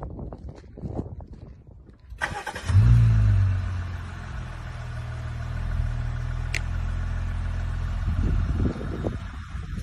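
Jeep Wrangler engine starting: a short crank about two seconds in, catching with a loud flare, then settling into a steady idle.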